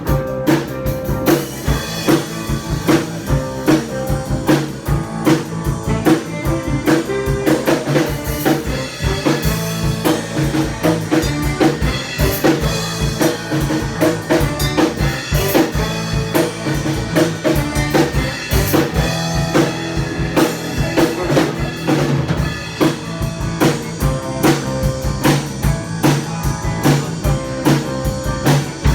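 Band music without vocals: a drum kit with snare and bass drum keeping a steady beat under pitched instruments.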